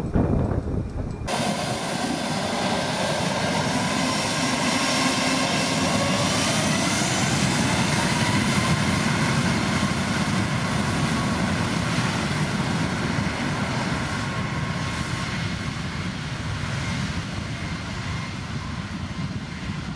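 Jet engines of a Boeing 737 MAX 8 (CFM LEAP-1B turbofans) running at high power as the airliner starts its takeoff roll, with a whine that rises in pitch as the engines spool up. The sound then slowly fades as the jet moves away.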